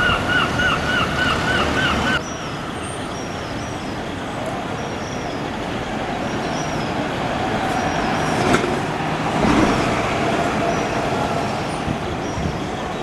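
City traffic with diesel buses running and passing. A rapid run of high chirps, about four or five a second, lasts for the first two seconds. The sound then drops to a quieter traffic hum with small bird chirps over it, a bus engine rising in the middle, and a brief sharp burst about eight and a half seconds in.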